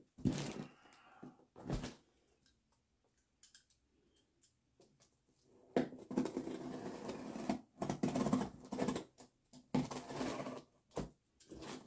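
A knife blade slicing and scraping through packing tape along the seam of a cardboard box, in a run of strokes through the second half. Near the start the box is pulled across the table and set down with a thump.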